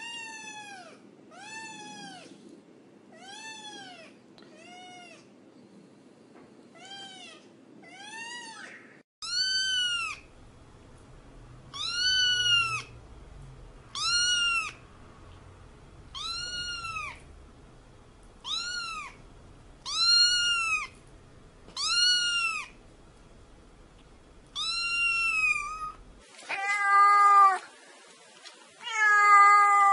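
Kittens meowing over and over, short high calls that each rise and fall in pitch. They come about once a second at first, then louder and higher-pitched, about every two seconds, after roughly nine seconds. Near the end come a few louder, lower, longer-drawn meows.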